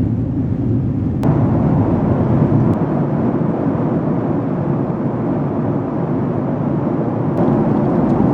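Steady rushing cabin noise of a Boeing 767-300ER in flight, jet engines and airflow heard from inside the passenger cabin. The noise grows brighter and harsher abruptly about a second in.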